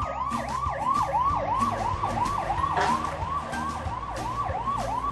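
Siren sound effect in a fast yelp, its pitch sweeping up and down about three to four times a second, standing for a fire truck rushing to a call.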